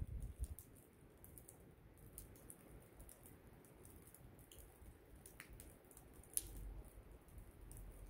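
Near silence during night snowfall: a faint hush with scattered soft ticks and clicks.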